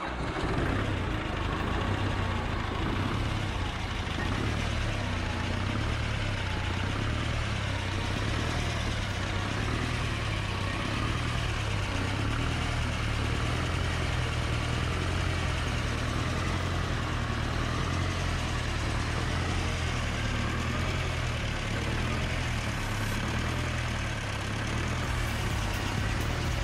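Air-cooled VMZ diesel engine from a T-28 tractor running steadily at idle just after a major overhaul, with an even low pulse.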